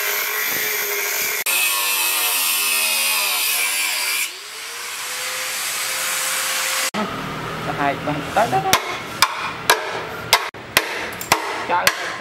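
Angle grinder cutting into a motorbike's steel frame, then a motor tone rising in pitch and levelling off. From about seven seconds in, a string of sharp metal knocks and clanks.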